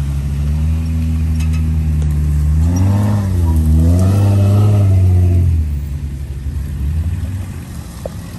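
Off-road vehicle engines running as a convoy pulls out. A steady engine note runs throughout. For about three seconds in the middle, one engine revs louder, its pitch rising and falling, then it eases back to the quieter steady running.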